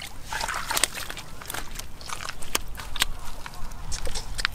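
Bare hands digging and squelching through wet mud, a run of irregular wet clicks and smacks.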